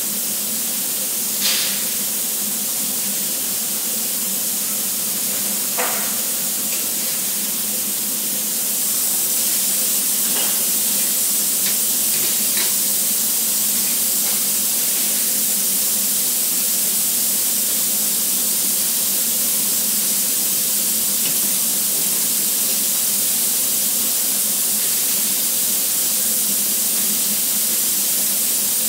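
Steady loud hiss of welding-shop floor noise with a faint steady hum beneath it, broken by a few sharp metallic clicks, the strongest about a second and a half in and at about six seconds; the hiss grows a little louder at about eight and a half seconds.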